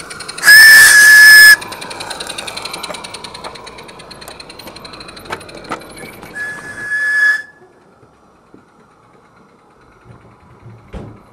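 Live-steam model locomotive's whistle blowing one loud, steady, high blast about half a second in that lasts about a second, over a rapid even beat from the running locomotive; a second, fainter whistle sounds for about a second near seven seconds, then the sound falls away to quiet.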